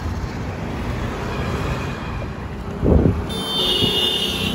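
Road traffic passing, with a loud low rumble of a vehicle going by about three seconds in. Near the end a vehicle horn sounds one long, steady, high-pitched honk.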